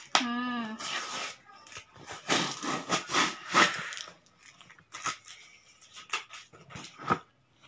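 Packing tape being picked at and peeled off a cardboard parcel: irregular ripping and scratching for a few seconds, then scattered scrapes and taps on the cardboard. A brief voice sound at the very start.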